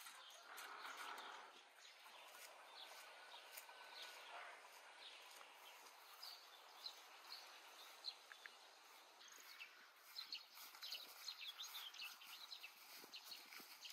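Faint rural outdoor ambience with scattered short bird chirps, coming more often in the second half.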